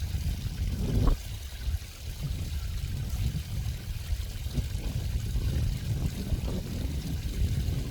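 Running water in a stream, a steady low rush with small irregular trickles and splashes.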